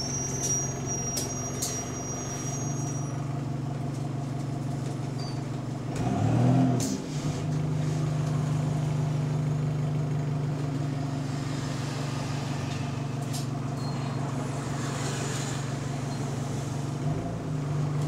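Bus engine running with a steady low drone, heard from inside the bus, an engine with an exhaust leak. About six seconds in, the engine sound swells briefly, rising and then falling in pitch.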